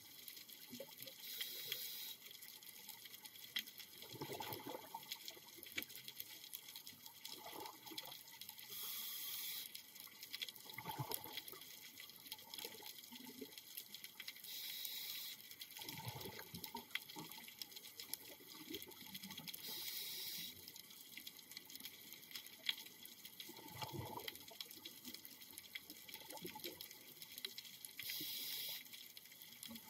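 Scuba diver breathing underwater through a regulator: the demand valve hisses on each inhalation, five times, and exhaled bubbles gurgle and rumble in between.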